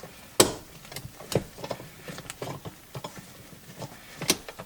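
Scattered small clicks and taps of handbrake parts being handled, with a sharper click about half a second in and another near the end.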